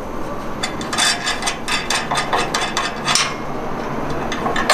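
A quick run of light metallic clicks, knocks and scrapes from tools and steel parts being handled, dense for the first few seconds, then easing off.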